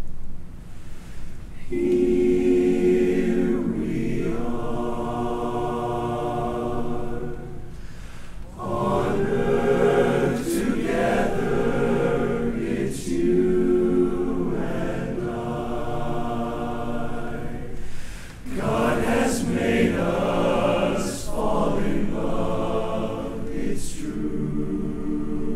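Men's barbershop chorus singing a cappella in close harmony. The singing starts about two seconds in and goes on in phrases, with short breaks between them.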